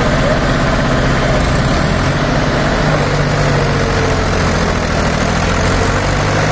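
Diesel engines of a Mahindra 265 DI tractor and a second tractor, an Eicher 242, running together. The engine note changes about two seconds in.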